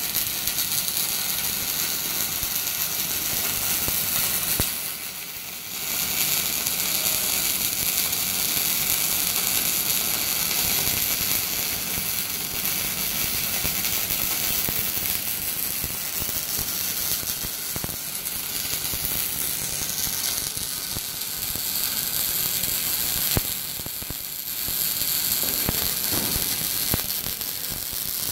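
MIG welding arc from a 250-amp MIG welder running steadily, a dense noise strong in the highs, broken by two short stops of the arc, about five seconds in and again near the end.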